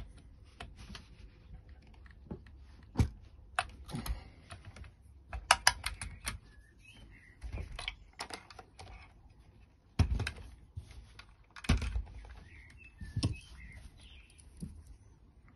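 Irregular clicks and taps of small plastic and metal RC car parts being handled and fitted by hand, with a few louder knocks of parts set down on the bench.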